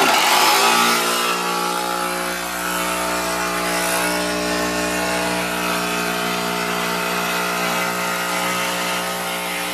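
Handheld cordless power saw with a metal-cutting blade cutting through a carbon-fibre hood panel. It starts abruptly and runs at one steady pitch throughout, really loud.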